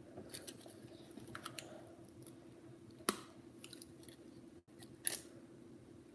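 Faint small clicks and rustles of a computer mouse's plastic parts being handled, with a sharp click about three seconds in and another about five seconds in.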